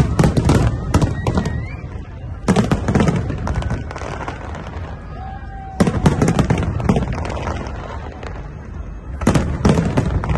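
Aerial fireworks display: volleys of rapid bangs come in four clusters a few seconds apart, with crowd voices in the gaps.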